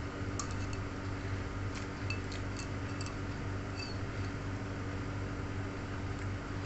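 Metal fork and spoon clinking against a bowl as noodles are scooped: a dozen or so light clinks with a short ringing, bunched in the first four seconds. A steady low hum runs underneath.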